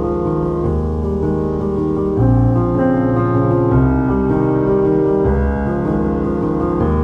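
Background music: soft piano and keyboard chords over a bass line, changing every second or two.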